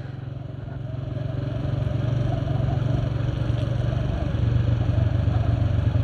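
Motorcycle engine running steadily while riding, getting louder over the first two seconds, its note shifting slightly lower about four seconds in.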